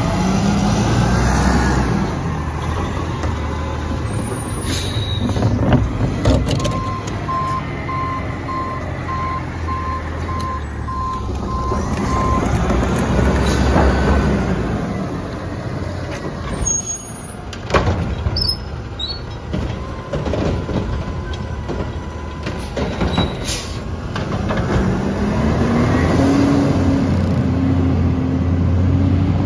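Front-loader garbage truck's diesel engine running and revving as it works its lift arms. A back-up alarm beeps steadily for several seconds, then there is a sharp hiss of air brakes. Near the end the engine note rises as the truck pulls away.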